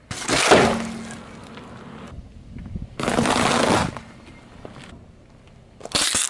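A car tyre crushing objects on asphalt. About a second in, a sharp pop and a rush of air as the tyre bursts an inflated foil balloon. Then comes a second short burst of noise, and near the end a brief spray as the tyre flattens a plastic bottle and squirts its liquid out.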